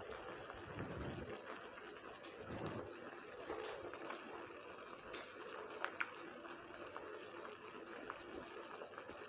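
Risotto simmering in an earthenware pot, a faint, steady bubbling with a couple of small clicks about six seconds in.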